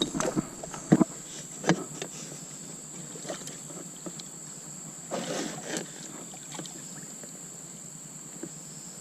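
Scattered knocks and handling noises in a kayak, a few sharp taps and a rustling cluster about five seconds in. Under them runs a steady high-pitched insect drone.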